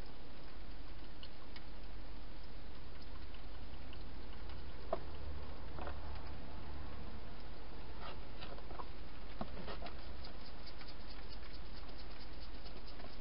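A hedgehog eating and moving about inside a plastic feeding box: scattered soft clicks and crackles that come thicker in the second half, over a steady low hum.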